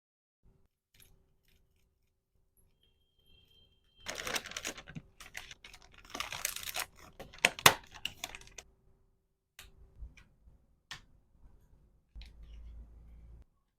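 Packing handling: plastic packaging crinkling and rustling in bursts, with small hard items clicking and tapping, one sharp click standing out as the loudest moment.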